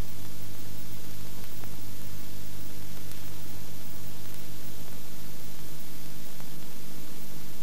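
Steady hiss with a low, unchanging hum underneath, the background noise of an old film soundtrack, with no distinct sound events.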